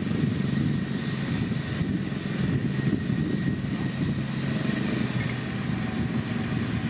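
Diesel engine of heavy road-building machinery running steadily, with a faint steady high whine above it.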